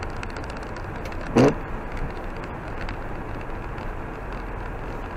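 Car driving on a slushy, snowy street, heard from inside the car: steady road and tyre noise with scattered small ticks, and one louder thump about a second and a half in.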